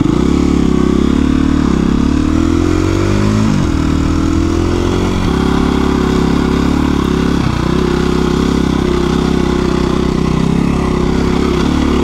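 KTM 350 EXC-F dirt bike's single-cylinder four-stroke engine running as the bike is ridden. Its revs climb from about two seconds in and drop sharply just before four seconds, then dip briefly twice more.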